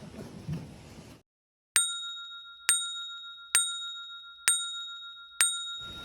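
Five identical bright bell dings, about one a second, each ringing briefly and fading. Dead silence just before them suggests a ding sound effect edited in.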